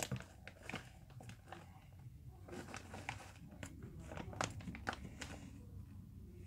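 A plastic snack packet crinkling and crackling in the hands as it is tipped and shaken over a cup, in faint, irregular crackles.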